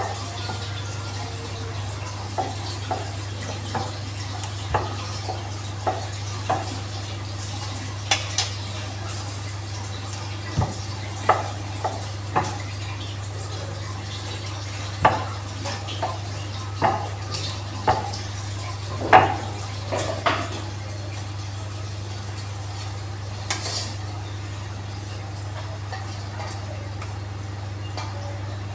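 Metal kitchen utensils clinking and knocking against a pan at irregular intervals, loudest a little past the middle, over a steady low hum.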